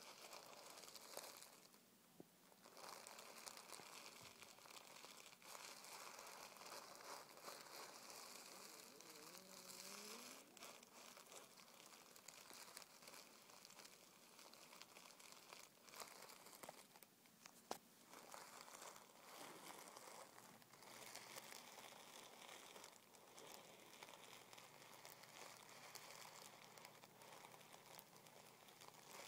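Fingertips rubbing and scratching a sheet of crumpled tissue paper: faint, continuous crinkling, with a brief lull about two seconds in.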